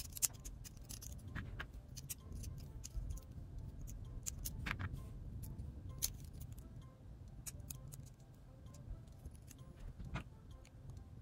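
Small sharp clicks and taps of hard plastic and metal model-kit parts being handled and pressed together, with a few louder ticks. The pins will not go into their holes: they are too big.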